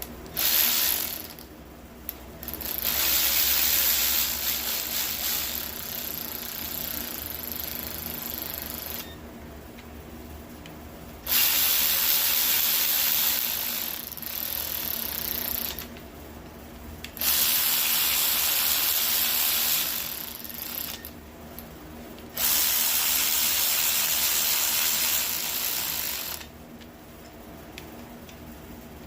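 Cordless drill running in repeated stretches of several seconds, with short pauses between them, as it spins head studs down into a Gen 3 5.3 LS engine block until they bottom out. The first stretch is brief; four longer runs follow.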